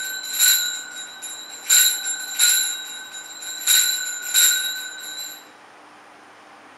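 Altar bell rung at the elevation of the chalice during the consecration at Mass: about six strikes in three pairs, each ringing on briefly before the next. The ringing then dies away.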